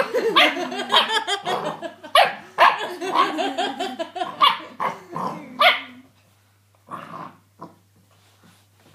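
Red setter puppy barking over and over in play, then falling quiet about six seconds in, with two brief, quieter sounds after that.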